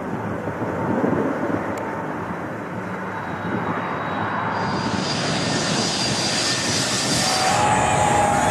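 Jet airliner engines: a steady rumble at first, then from about four and a half seconds in the noise grows louder and brighter with a strong high hiss as a jet takes off.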